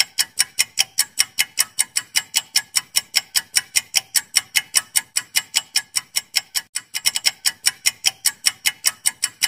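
Clock-ticking sound effect: fast, even ticks, several a second, timing a quiz countdown.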